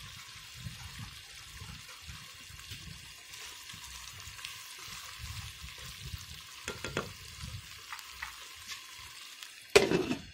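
White chicken karahi sizzling gently in a non-stick pan with the flame just turned off, as a spoon stirs through it with a few light clicks against the pan. Near the end a glass lid goes onto the pan with one loud clink.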